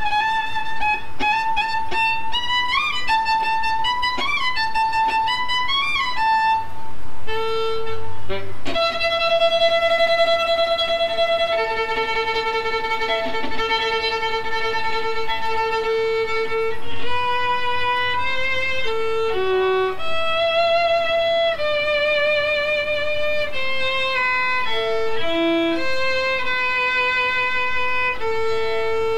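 Solo violin playing a melody: quicker notes with small slides for the first few seconds, then long held notes with vibrato.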